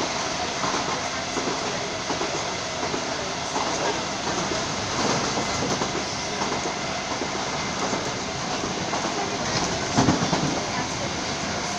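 Passenger train running at speed, heard from inside the carriage: a steady rumble of wheels on the rails with clickety-clack, and a louder knock about ten seconds in.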